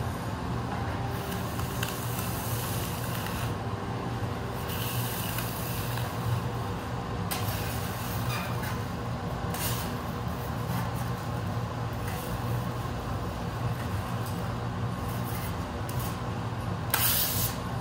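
Steady roar of a glass studio's gas-fired glory hole and exhaust fans, with a low hum underneath and short hissing rushes several times through.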